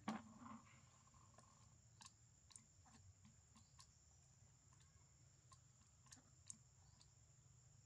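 Near silence: a short knock at the very start, then faint, irregular clicks, about one or two a second, as a baby macaque sucks and swallows milk from a small carton held to its mouth. A faint steady high hiss runs underneath.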